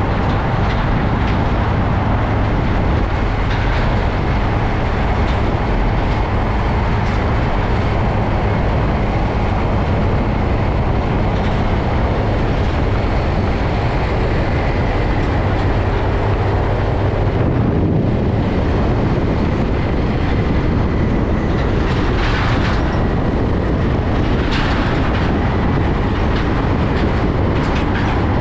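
International semi-tractor hauling a container trailer at road speed close by: a steady, loud rumble of diesel engine and tyres on the road, with road noise.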